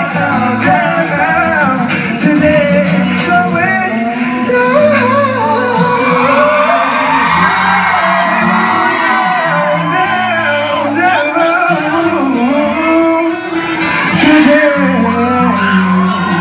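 Live pop band in concert: male voices singing a melody over acoustic guitar and band accompaniment, with shouts from the crowd, echoing in a large hall.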